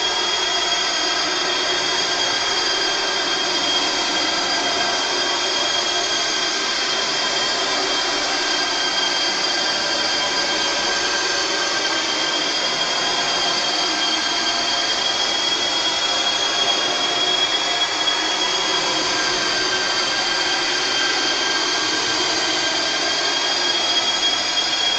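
Horror sound effect: a harsh, steady high-pitched whine made of several held tones over a hiss, running on without a break or change.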